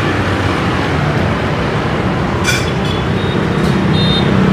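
Steady road traffic with engines running close by, swelling a little near the end. There is one short metallic clink a little past halfway.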